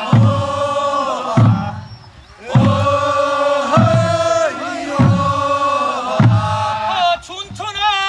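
Group of voices chanting a Korean folk song in unison on long held notes, over a low drum beat about every second and a quarter. Near the end a single voice with a wavering pitch takes up the song.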